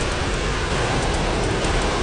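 Steady rain pattering on glass windows, with faint scattered small ticks.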